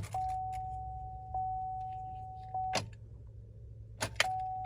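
A truck's dashboard warning chime dinging in a steady string, one ding about every 1.2 seconds, broken by a few sharp clicks near the start and again near the end. The engine does not crank: this is the truck's no-crank, no-start fault.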